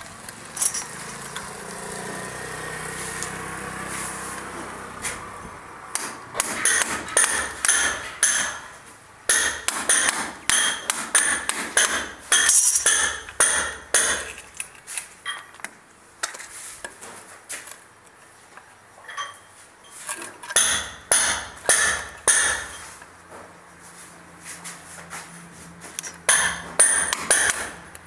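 Hammer tapping: sharp knocks with a metallic ring, several a second, in two long runs separated by a quieter pause of several seconds. The first few seconds hold only a steady background rumble.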